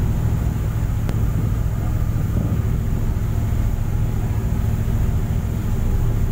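Passenger ship's engines running steadily at cruising speed: a loud, even, low drone, over the rush of the wake along the hull.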